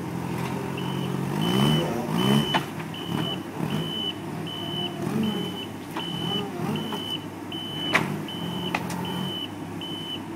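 Forklift warning beeper sounding a steady run of high beeps, about one and a half a second, over the LPG engine running; the engine revs up briefly near the start. A sharp knock about eight seconds in.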